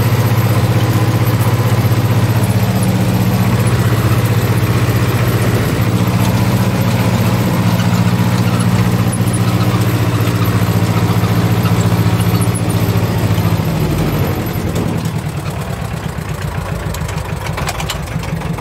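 Ursus C-330's two-cylinder diesel engine running steadily, heard from inside the tractor's cab. About fourteen seconds in the engine speed drops, and it settles to a quieter, evenly pulsing run.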